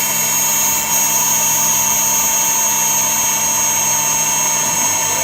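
Techno HD-II tabletop CNC router spindle running at speed, its single-flute down-cut spiral O-flute bit milling the perimeter of a part in 0.025-inch brass sheet. It makes a steady, high-pitched whine that stays at one level throughout.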